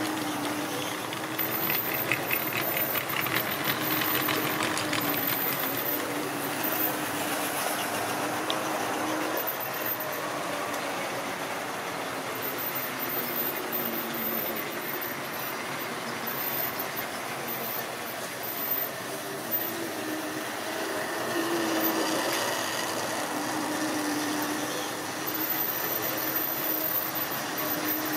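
Tri-ang model train running past on the track: the locomotive's electric motor giving a steady hum, with the coaches and wagons rattling and clicking over the rail joints, the clicking rapid and regular about two to five seconds in.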